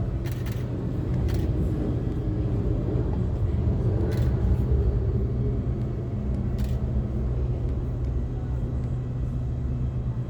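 Airbus A320 jet engines giving a steady low rumble as the airliner climbs away after takeoff, with a few faint clicks over it.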